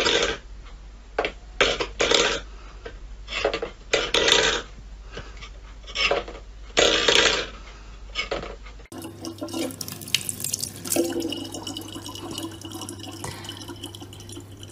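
A steel pet bowl scraped and knocked against a wooden floor by a cat's paw, in five or six scrapes of about a second each with small clicks between. Then, about nine seconds in, a tap runs a thin, steady stream of water into a plastic water bottle.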